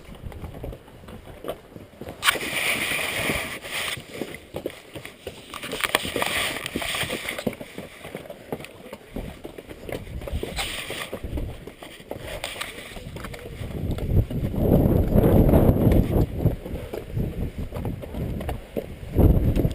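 Strong wind gusting over the microphone: a hissing surge, then heavy low buffeting blasts about two-thirds of the way through and again near the end. Beneath it, mule hooves clop on the rocky trail.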